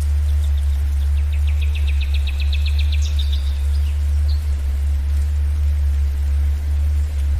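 A steady low drone, the theta-wave tone, runs under a faint forest hiss. About a second in, a songbird sings a fast trill of evenly repeated notes lasting about two seconds, ending in a short falling note, with one brief call a second later.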